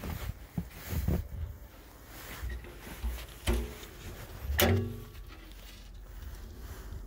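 Steel toolbox on a trailer being unlatched and opened: a few light knocks and rattles, then two metallic clanks about three and a half and four and a half seconds in, each ringing briefly.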